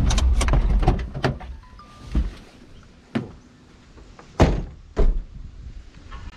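A Ford car's engine running and then switched off about a second and a half in, followed by a series of car door thuds, the two loudest close together a little past four seconds in.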